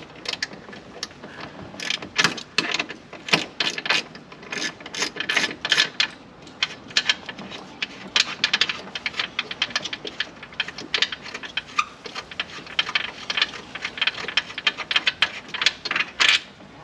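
Hand ratchet with a T40 Torx bit clicking as it backs out long screws, in repeated runs of quick clicks with short pauses between strokes.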